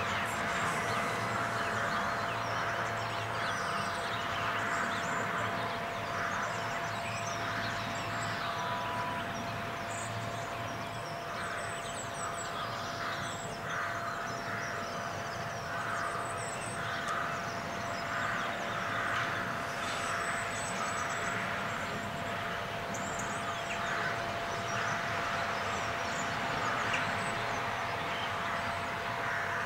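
Outdoor shoreline ambience: birds calling with short high chirps over a steady background hum and soft, regular rushing noise.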